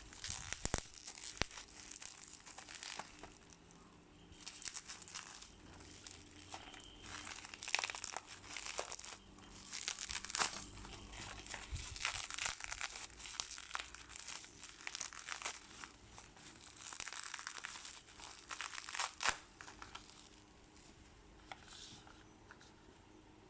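Product packaging being handled and opened by hand: irregular crinkling and rustling with many small sharp clicks, quieter over the last couple of seconds.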